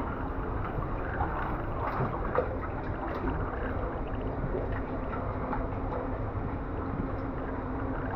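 Water sloshing and splashing as people wade through a flooded cave passage, with small irregular splashes over a steady wash of noise.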